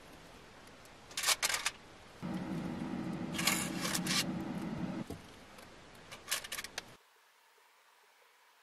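Aluminium foil crinkling in short bursts, three times, as rice balls are set down in a foil-lined pot. A low steady hum runs under the middle bursts for about three seconds.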